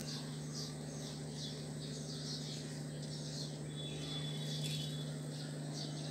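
A bird chirping over and over, short falling calls about twice a second, over a steady low hum.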